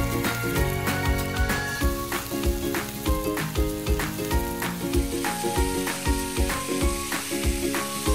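Dumplings frying in hot oil in a pan, a steady sizzle, under background music with a steady beat.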